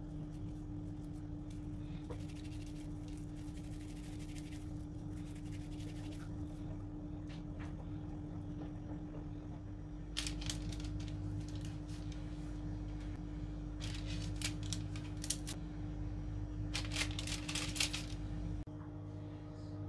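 Soft handling of minced meat being pressed along wooden skewers, then skewers of meat set down on a baking-paper-lined tray: clusters of paper crinkling and sharp clicks about ten seconds in and again twice more near the end. A steady low electrical hum runs underneath.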